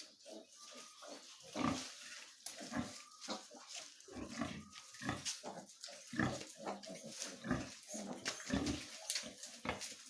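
Pigs, sows and piglets, grunting over and over in short irregular grunts, with a few brief high squeaks.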